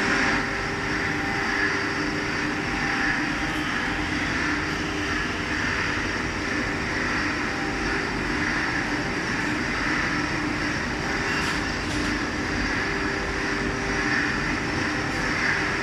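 Ebosa lathe-milling machine running steadily: a constant motor and spindle hum with a thin high whine over it.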